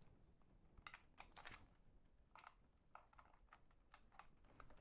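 Faint, scattered clicks and light knocks of cable connectors being handled and pushed into the ports of a Mersive Solstice Pod.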